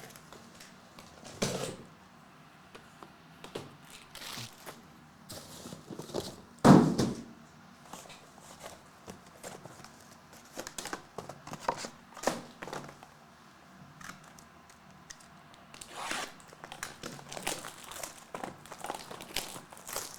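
Foil trading-card pack wrappers being crinkled and torn open by hand, with scattered rustles, small clicks and knocks; a louder rustling thump comes about seven seconds in.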